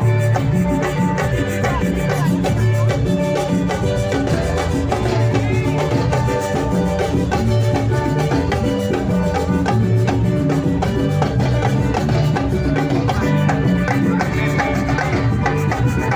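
Live band music with a steady, dense percussion rhythm, shakers and drums over a strong bass line.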